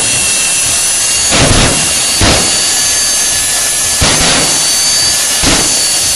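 Gas turbine engine of a drag-racing motorcycle running while the bike stands still: a steady high-pitched turbine whine over a loud rush, with several short louder surges.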